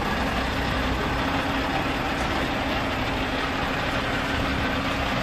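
Scania R520's 16-litre V8 diesel idling steadily.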